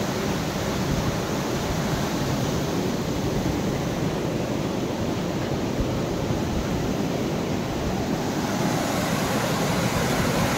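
Steady rush of a river's white-water rapids churning below a bridge, an even noise with no breaks.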